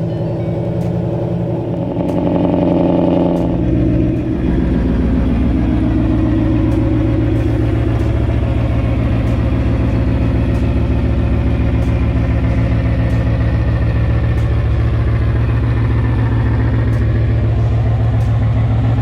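Ford Mustang Boss 302's 5.0 V8 engine running steadily, its pitch dropping about four seconds in and then holding.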